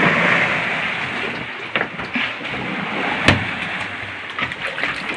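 Steady rush of water around a small fishing boat at sea, with scattered light knocks on the deck and one sharp knock about three seconds in.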